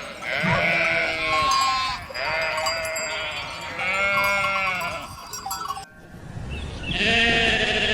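Sheep bleating: four long baas in a row, each with a wavering pitch.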